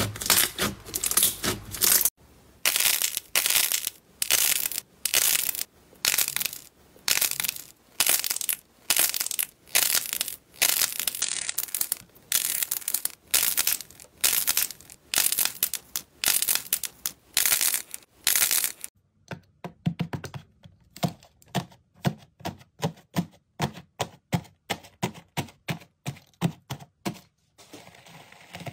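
Hands squeezing and pulling apart crunchy slime, giving repeated crackling squishes about one to two a second. About two-thirds of the way in, the sound changes to shorter, lower popping squishes.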